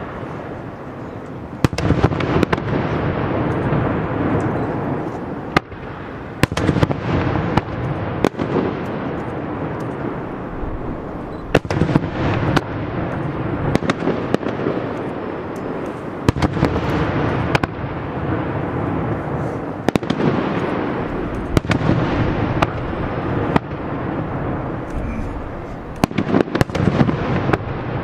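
Fireworks display: aerial shells bursting one after another, with sharp bangs every second or two and a continuous rumble and crackle trailing between them.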